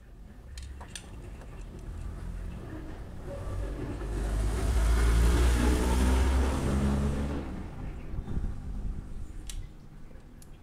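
A motor vehicle's engine passing by, growing louder over a few seconds, then fading away. A few sharp clicks come just before and after it.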